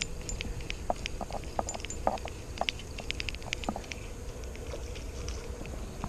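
Light, irregular clicks and ticks from a spinning rod and reel being worked, over a low steady rumble.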